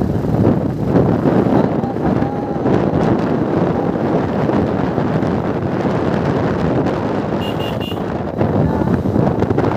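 Wind buffeting the microphone over the steady rumble of a vehicle driving along a road. Three quick high beeps sound near the end.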